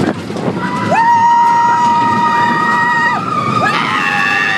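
Roller-coaster riders screaming as the train runs into a dark tunnel: two long held screams, the first rising in about a second in and lasting about two seconds, the second starting near the end, over the steady rumble of the wooden coaster's train on its track.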